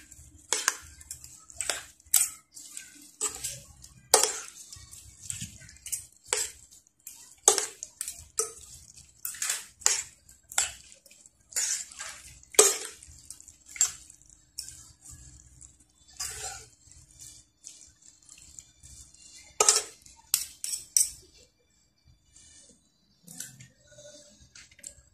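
Utensils scraping and clinking against a stainless steel frying pan as minced pork and herbs are tossed together, in quick irregular strokes. The clinks stop a few seconds before the end.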